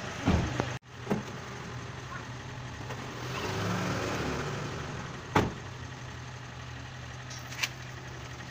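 Mahindra diesel SUV engine idling steadily, with a few sharp clicks and one louder knock about five seconds in.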